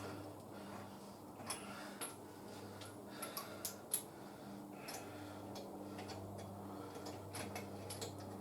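Scattered light clicks and taps of hand tools and hardware, a few in quick succession about three to four seconds in, over a steady low hum.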